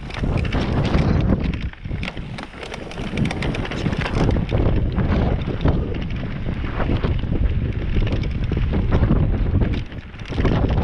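Wind buffeting the microphone of a mountain bike riding fast down a dry dirt and stone trail, with the tyres crunching over loose stones and the bike rattling and clicking. The noise drops briefly near the end.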